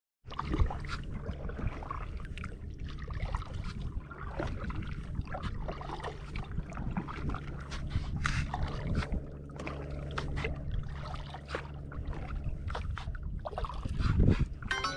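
Kayak paddling: the paddle blades dip and splash, and water trickles off them in an uneven run of strokes over a steady low hum. One heavier splash comes near the end.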